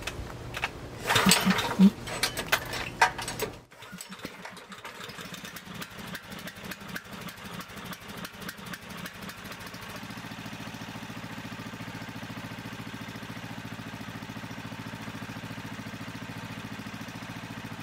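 Predator 420cc single-cylinder engine pull-started on a freshly fitted NGK spark plug: loud cord pulls and surges for the first few seconds, then it runs unevenly and settles into a steady idle from about ten seconds in.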